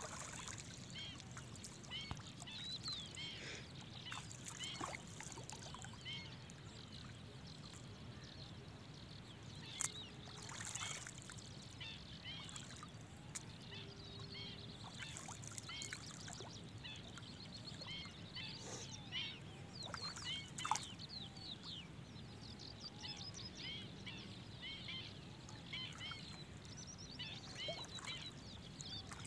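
Splashing footsteps of a person wading through shallow water, with a few louder splashes about ten and twenty seconds in, under many short bird calls scattered throughout.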